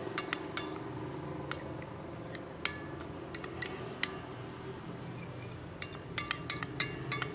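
A spoon stirring a mixture, clinking irregularly against the sides of a container, each clink ringing briefly. The clinks come in small clusters and are busiest about six to seven seconds in.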